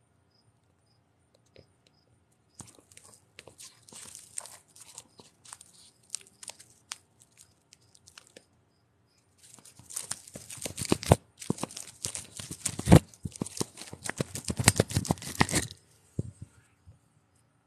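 Handling noise: fingers rubbing and scraping on a phone near its microphone as it is grabbed and moved. Scattered scratches begin a few seconds in, and a louder run of scraping and clicks follows in the second half.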